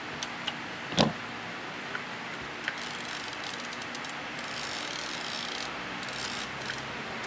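Mamiya C330 twin-lens reflex camera: one sharp shutter click about a second in, then the side film-advance crank wound with a run of fast, fine ratcheting clicks for a few seconds, which also re-cocks the shutter.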